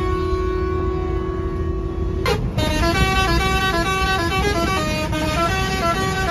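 Bus's musical horn sounding: one long steady note until about two seconds in, then a quick tune of notes stepping up and down. The bus's engine and road rumble run underneath.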